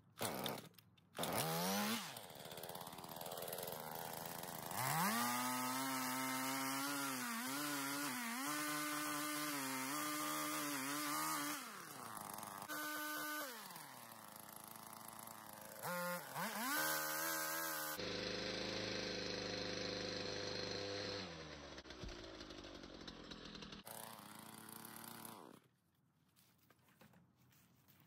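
Pole saw cutting through a leaning tree trunk. The motor revs up, then its pitch dips and recovers again and again as the chain bites into the wood. After a few shorter revs it winds down and stops near the end.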